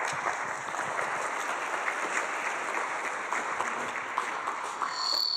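Audience applauding, a dense, steady clapping that cuts off abruptly near the end.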